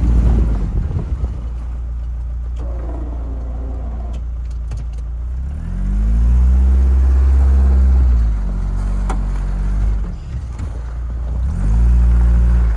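Chevy Tracker's engine running at a low, steady pitch, revving up and back down about six seconds in, then revving up again near the end.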